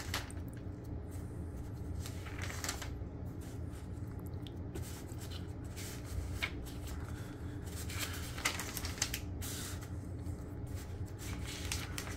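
Scattered rustles, clicks and light knocks of furniture parts being handled during flat-pack assembly, over a steady low hum.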